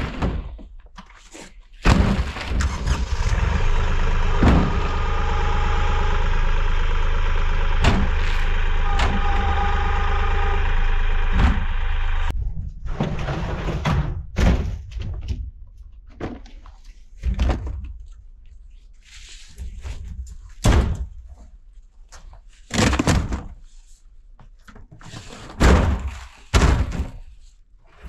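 Empty plastic IBC totes in metal cages being shoved across snowy, muddy ground: a long scraping rumble for about ten seconds that stops abruptly, then a series of hollow thunks and knocks as the totes are moved and set down.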